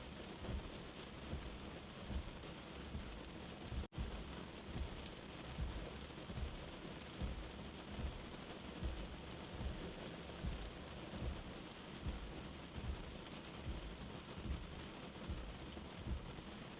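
Steady rain falling, with a low, uneven rumble of thunder underneath. The sound cuts out for a split second about four seconds in.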